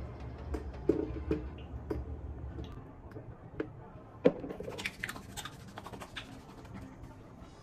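Light clicks and knocks of a plastic face-wash bottle and pump being handled, with a sharp click about four seconds in, followed by soft crackly rubbing of hands working the cleanser.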